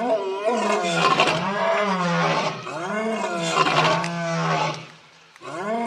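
Adult male lion roaring: a run of deep calls about a second each, rising and falling in pitch, with a brief pause near the end before the next call begins.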